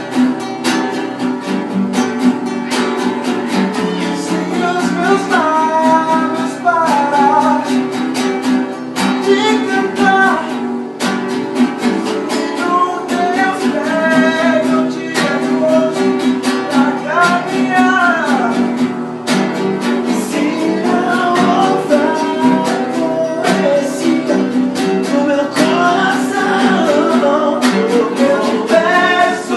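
Acoustic guitar (violão) playing a hymn, steady chords underneath with a melody line moving above them.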